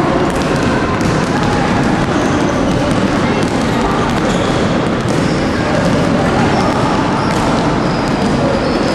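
Basketballs bouncing on a wooden gym floor, many dribbles overlapping, with children's voices in the background.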